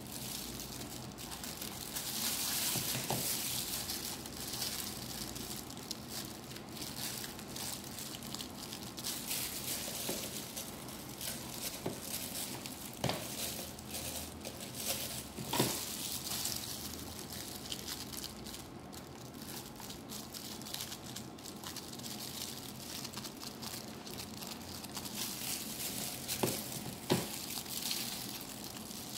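Thin disposable plastic gloves crinkling while food is handled on a plastic cutting board, over a steady background hiss, with a few short, sharp knocks.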